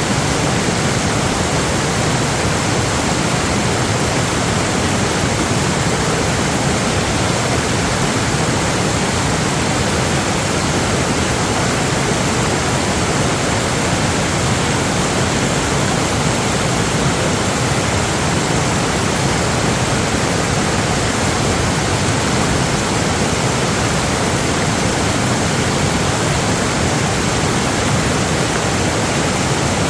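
Steady, loud rushing water, with no change in level throughout.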